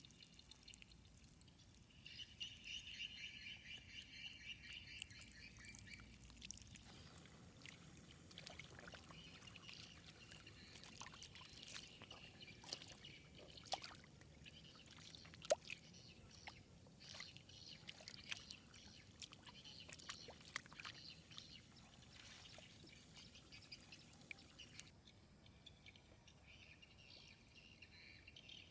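Faint flowing water pouring and trickling, with scattered small splashes and clicks through the middle. A high, rapidly pulsing chirping runs in the background for a few seconds near the start and again near the end.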